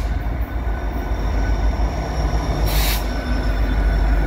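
Canadian Pacific freight train's lead diesel-electric locomotives, an EMD SD70ACu and a GE ES44AC, passing close by with a steady heavy rumble of engines and wheels on rail. A short burst of hiss comes nearly three seconds in.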